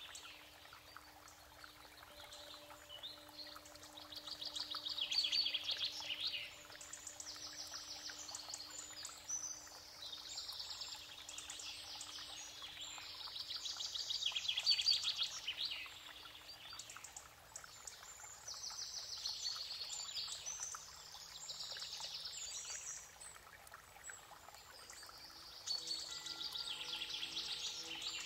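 Songbirds singing quick trilling phrases, one every couple of seconds, over a soft, sustained low music tone.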